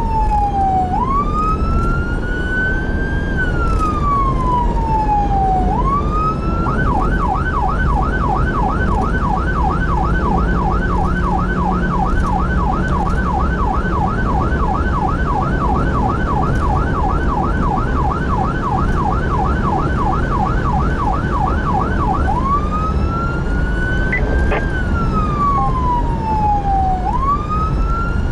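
Emergency vehicle's electronic siren heard from inside the cab over road and engine noise. It starts on a slow rising and falling wail, switches about seven seconds in to a rapid yelp of about three sweeps a second, and returns to the wail some fifteen seconds later.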